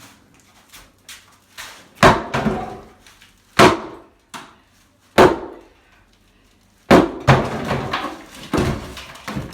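Sledgehammer blows striking a kitchen cabinet to knock it down: about six heavy hits at uneven intervals, the first about two seconds in and a quick pair near the end, each trailing off briefly, with a few lighter knocks between.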